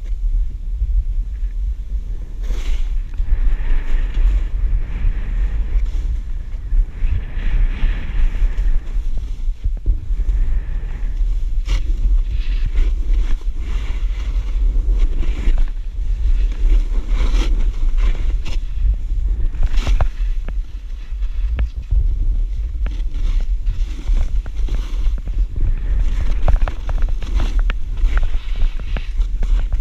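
Wind rumbling over a body-mounted action camera's microphone while snowboarding, with the board hissing and scraping through powder snow. There are scattered sharp knocks from the board hitting bumps, the clearest about twelve and twenty seconds in.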